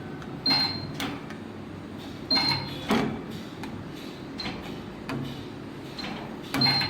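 A 15 kVA spot welding machine making about four spot welds on two 1 mm galvanised steel sheets. Each weld is a sharp clank of the electrodes closing, with a brief electrical hum and a short high ring.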